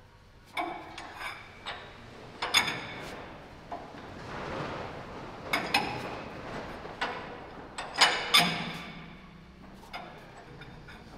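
Sharp metal-on-metal clanks and clinks, each with a brief ring, as a steel armor plate is worked into place over a Churchill tank's air intake; about half a dozen knocks, the loudest pair about eight seconds in, with a scraping rustle around the middle.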